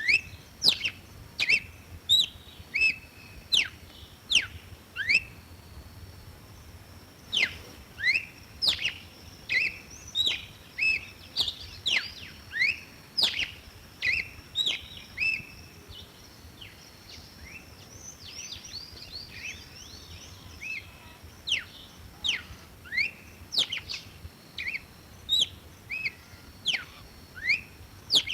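Red-cowled cardinal singing: a long run of short, sharp whistled notes sweeping steeply up and down, about two a second, with a couple of brief lulls.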